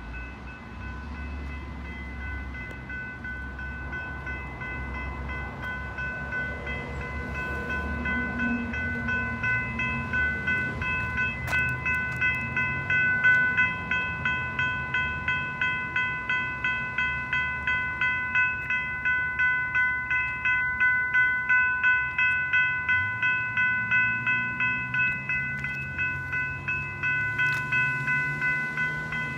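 Railroad crossing warning bell ringing in fast, even strikes, growing louder over the first dozen seconds. It is sounding with no train approaching: the crossing is malfunctioning.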